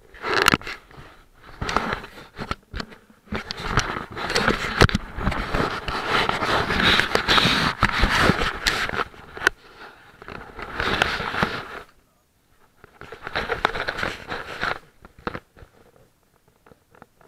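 Handling noise from a camera's microphone rubbing and knocking against clothing fabric: irregular crackles, scrapes and knocks in bursts. It falls silent about twelve seconds in, comes back briefly, then fades near the end.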